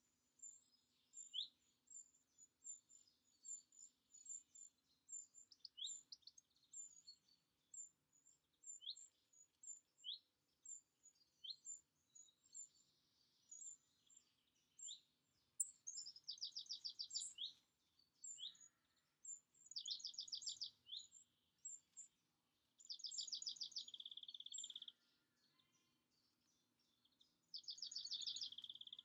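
Garden songbirds singing: a stream of short, high chirps throughout, and from about halfway on a bird sings a fast trill of about a second and a half four times. A faint steady low hum runs underneath.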